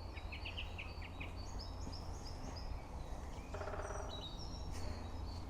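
Several small songbirds singing and calling in woodland: short high chirps and quick runs of rising notes, over a steady low rumble.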